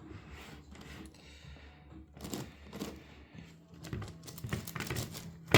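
Irregular plastic clicking and clacking of an 11x11x11 Rubik's cube's layers being turned by hand, sparse at first and busier in the second half, with one sharper click near the end.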